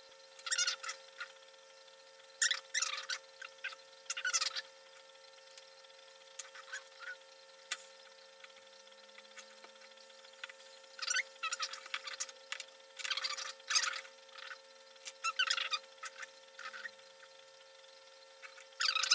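Small plastic wire connectors and wires being handled and pushed into a connector housing: irregular clusters of light clicks and crackling rustles with short pauses between, over a faint steady hum.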